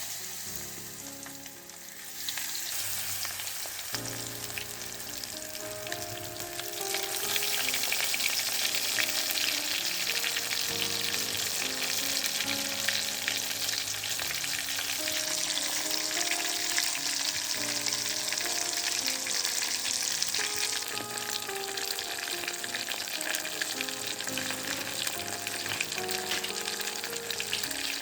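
Hot oil sizzling steadily as food fries in a pan, getting louder about two seconds in and again about seven seconds in.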